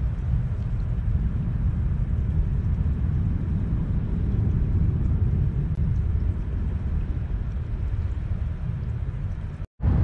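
Steady low rumbling noise without any distinct tones, broken by a brief dropout to silence near the end.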